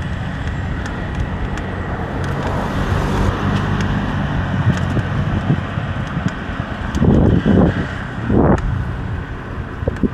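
Vehicle running with steady road noise and a low engine rumble, swelling louder a couple of times about seven and eight and a half seconds in.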